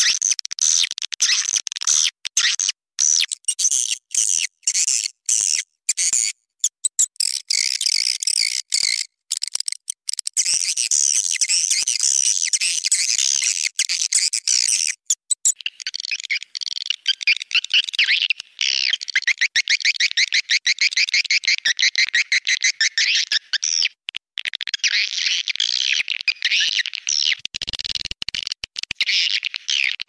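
Swiftlet lure call: a recording of edible-nest swiftlets' dense, rapid, high twittering chirps, broken by many brief gaps, of the kind played to draw swiftlets into a nesting house.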